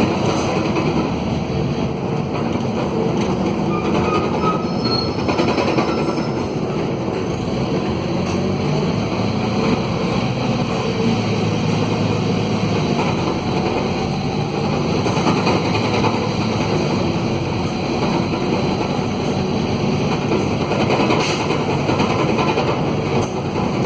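Mercedes-Benz OM904LA four-cylinder diesel of an OH-1115L-SB midibus running under way, heard from aboard the bus, loud and rough from a broken exhaust. A few brief high squeaks sound a few seconds in and again near the end.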